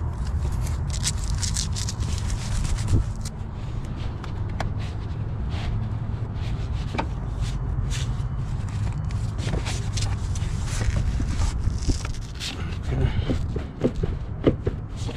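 Scraping, rubbing and clicking as a gloved hand works the ribbed rubber air intake duct of a 2013 Chevy Traverse loose from the throttle body, with a cluster of sharper clicks near the end, over a steady low rumble.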